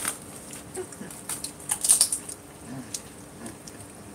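Light clicks and taps of a metal spoon against a plate and crisp puri shells as potato filling is spooned into them. There is a small cluster of taps about two seconds in.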